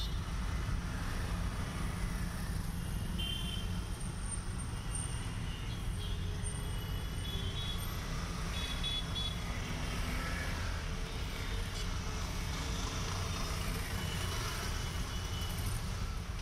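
Steady low rumble of background traffic, with a few short high-pitched tones like distant horns scattered through it.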